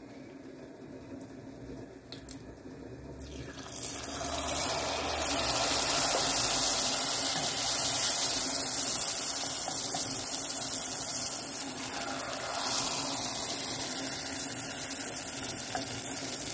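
Picarón dough dropped into a pot of hot oil and deep-frying with a loud, steady sizzle, starting sharply about four seconds in after a quieter start.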